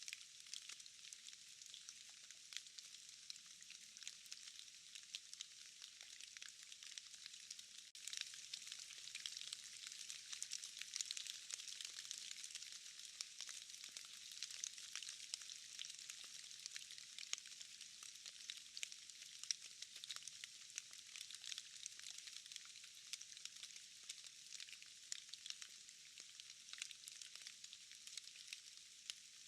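Steady, faint hiss of rain in a forest, with many small drops ticking as they fall from trees and moss. The rain swells slightly about eight seconds in.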